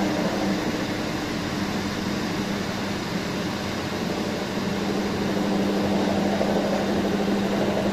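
Steady mechanical hum with an even hiss, its low tone growing stronger about five seconds in.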